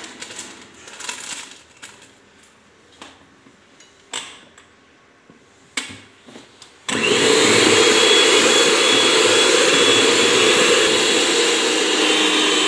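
A few light rustles and taps. Then, about seven seconds in, an electric hand mixer switches on abruptly and runs steadily at speed, its beaters whirring through cake batter as baking powder is mixed in.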